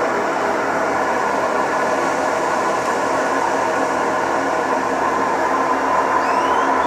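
Whirlpool 15 kg washing machine running in its spin cycle: a loud, steady rumble with a steady tone in it, noise the owner puts down to worn drum bearings.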